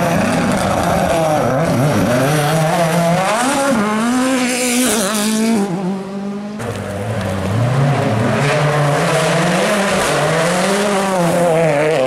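Rally car engines revving hard, pitch climbing and dropping repeatedly through gear changes and braking. About six and a half seconds in it cuts abruptly to another car doing the same.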